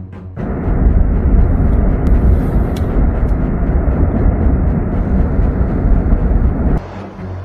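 Erupting lava fountain: a loud, steady deep rumble that starts about half a second in and drops suddenly near the end to a quieter rumble.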